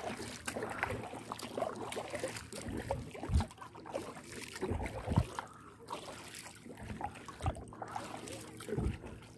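Kayak being paddled across calm water: irregular paddle swishes and splashes with dripping water, and a few low thumps.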